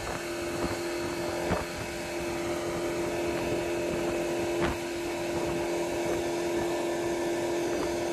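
Outboard motor running at high speed, a steady drone with a held whine, driving the boat across the lake. A few short thumps sound over it, about a second and a half in and again just before the five-second mark.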